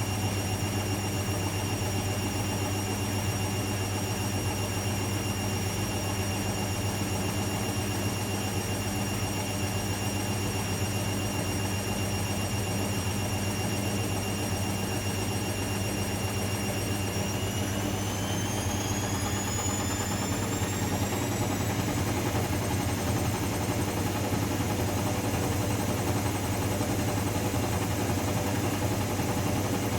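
Zanussi ZE 16 washing machine in its final spin with a badly unbalanced load: a steady low hum under a high motor whine. About two-thirds of the way through, the whine rises in pitch as the drum speeds up, then holds at the higher speed.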